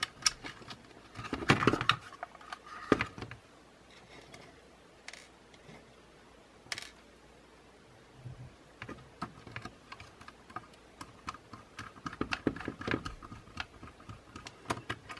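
Light clicks and taps of plastic drone-shell parts and a small precision screwdriver during reassembly of a DJI Mavic Air 2. A few sharp clicks come in the first three seconds, then a quiet stretch, then a run of small quick clicks from about nine seconds on.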